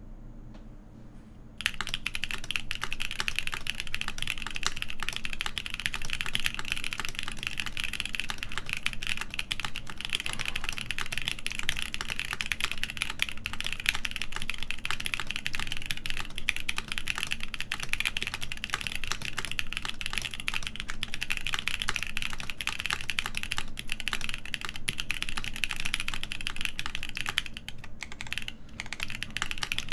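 Continuous fast typing on a Kepler TKL mechanical keyboard with factory-lubed stock BSUN X switches, a full polycarbonate plate and GMK keycaps. The keystrokes start about a second and a half in and thin out briefly near the end.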